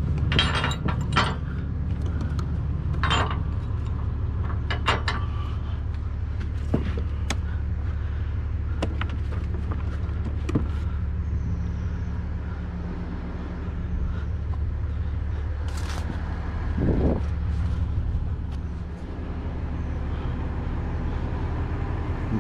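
Heavy truck diesel engine idling steadily, with a few sharp clicks and knocks near the start and once more around the middle.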